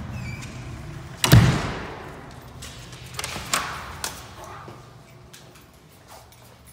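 A house door handled: a loud thud about a second in, then a few lighter clicks and knocks.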